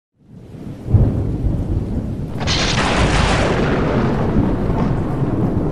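Thunder: a rumble swells in, a heavy low clap about a second in and a sharper crack about two and a half seconds in, then a steady rolling rumble.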